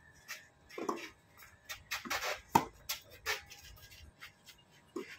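Tennis rally on a clay court: a string of sharp pops from racket strikes and ball bounces, the loudest about two and a half seconds in.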